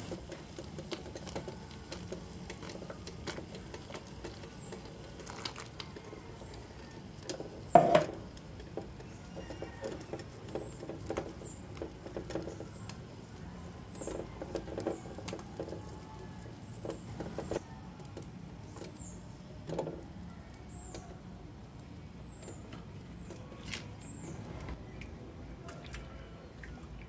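A whisk beating liquid in a metal pot, clicking and tapping against the pot's sides and bottom, with one loud knock on the pot about eight seconds in and runs of quick taps midway. Short, faint, high chirps recur irregularly in the background.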